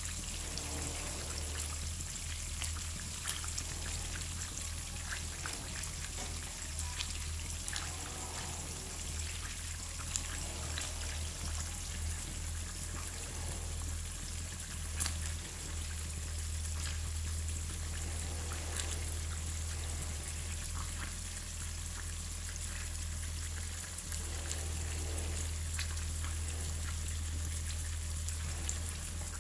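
Stuffed squid frying in shallow oil in a pan: a steady sizzle with scattered pops and crackles, over a low steady hum.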